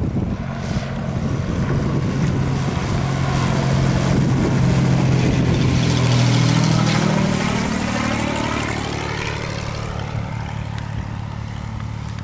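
Cessna T182T Turbo Skylane, a single-engine propeller plane with a turbocharged six-cylinder piston engine, passing by while landing. The engine and propeller drone grows louder, peaks about halfway through, then drops in pitch and fades as the plane goes past.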